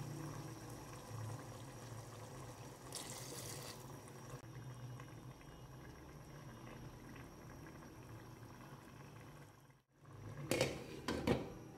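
Pot of chicken in liquid simmering on a gas stove, a steady low bubbling hiss, with a brief rushing burst about three seconds in. Near the end come a few loud, sharp clatters as the glass pot lid is handled.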